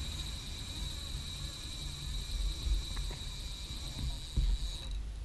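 Quiet lakeside ambience: a low, uneven rumble of wind on the microphone under a steady high-pitched drone that stops shortly before the end, with a few faint clicks.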